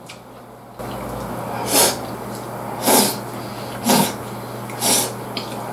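A man breathing hard through his nose while eating: four loud, noisy snorting breaths, about one a second, over chewing.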